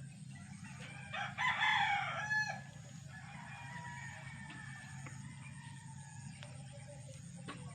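A rooster crowing once, a single loud crow lasting about a second and a half, over a steady low hum.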